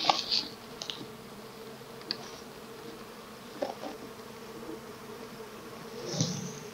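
Honeybees buzzing in a steady, even hum from an opened nucleus hive, with a few short clicks over it.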